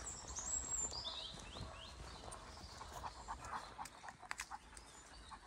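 A Greater Swiss Mountain Dog panting while footsteps scuff and crunch on a sandy forest path. A bird gives a few quick falling chirps about a second in.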